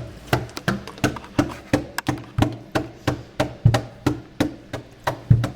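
Knuckles knocking on a wooden door over and over in a steady run of light raps, about three a second.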